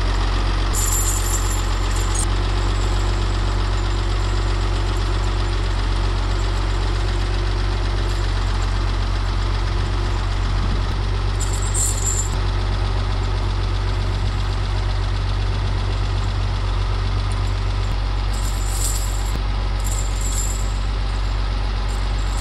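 Farmall 656 tractor engine idling steadily, with a few brief high-pitched clinks now and then.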